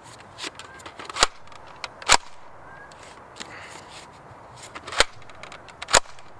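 Sharp plastic clacks and snaps from a Nerf N-Strike Thunderblast rocket blaster as a foam rocket is pulled from the stock holder, loaded and the blaster primed, with four loud snaps among lighter clicks; the last, near the end, is the blaster firing.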